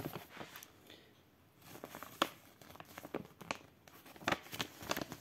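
Folded paper instruction leaflet crinkling and rustling in short crackles as it is unfolded and handled, with a quiet pause about a second in.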